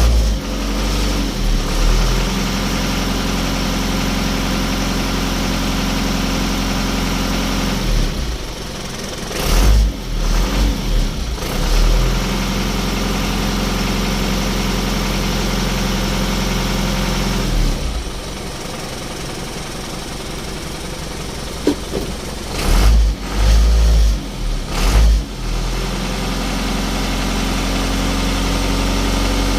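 Isuzu Elf truck engine idling steadily, its note breaking off twice, with loud low thumps, before settling back to a steady idle, while the truck is tested for hard starting.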